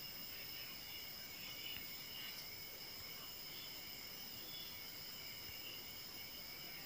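Faint insects chirring steadily in the background, several high tones sounding at once over a low hiss.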